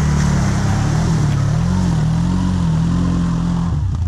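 Off-road vehicle's engine working hard under load, its pitch rising and falling as the throttle is worked, then dropping off sharply near the end.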